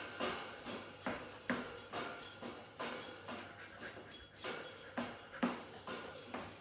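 Boxer dog panting in quick, rhythmic breaths, about two a second.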